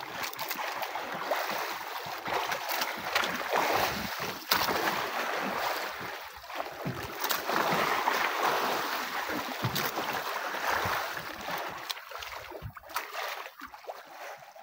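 Sea waves splashing against the hull and outrigger of a small outrigger fishing boat, a continuous wash of water with a scattering of small clicks and knocks.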